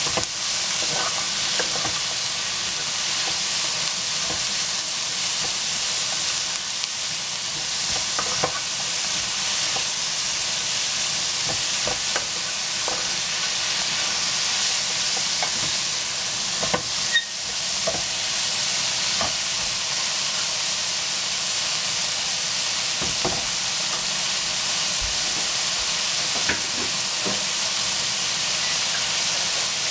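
Shredded cabbage and peppers sizzling steadily in a hot frying pan, with irregular clicks and scrapes of a wooden spatula against the pan as the vegetables are stirred.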